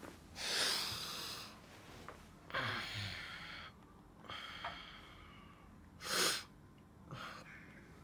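A man breathing heavily and sniffing in five short bursts, the loudest about six seconds in.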